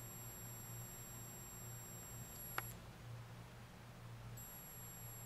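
Electroluminescent (EL) wire inverter giving off a steady high-pitched whine from the high-frequency drive that lights the wire's phosphor. About halfway through it cuts off with a click as it is unplugged, then starts again about a second and a half later.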